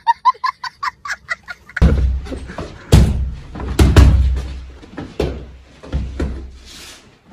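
Punches and kicks landing with heavy thuds during martial-arts training, about one a second. They follow a quick string of short high beeps in the first second and a half.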